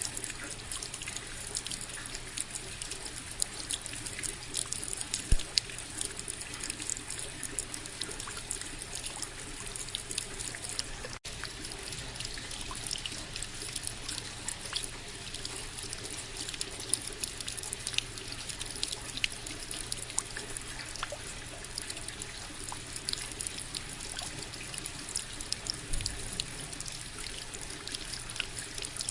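Steady rain falling, an even hiss full of small dripping ticks, with one sharper tap about five seconds in and a split-second break near the middle.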